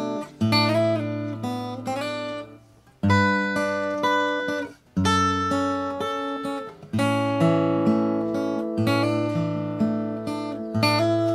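Steel-string acoustic guitar, a Taylor Big Baby, played unaccompanied in short phrases of chords and single notes over bass notes, with brief pauses about three and five seconds in.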